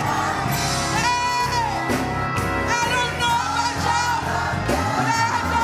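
Live church music: a gospel song sung with instrumental accompaniment, held up by sustained bass notes.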